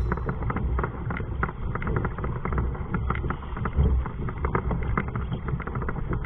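Wind rumbling on the microphone while choppy water laps against a kayak, with frequent small clicks and knocks.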